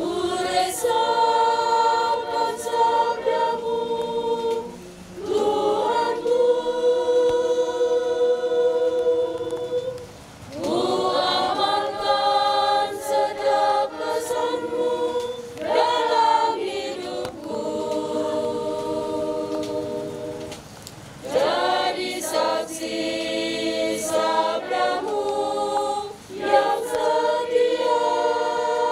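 Women's choir singing a hymn together in long held notes, phrase by phrase, with short breaks between the phrases.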